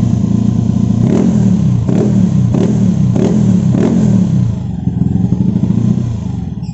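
Honda Beat scooter's single-cylinder engine, built to 125cc spec, revving through a Tsukigi VND aftermarket exhaust. Five quick throttle blips come about a second apart from about a second in, each dropping back, and the engine settles toward idle near the end.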